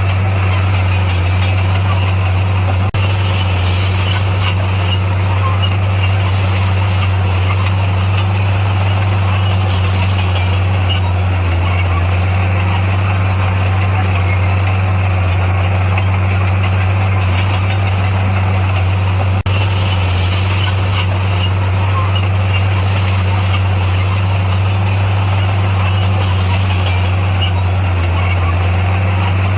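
Diesel engine of heavy earthmoving machinery running steadily at a constant speed, a loud low drone with no revving, broken by two very brief dropouts.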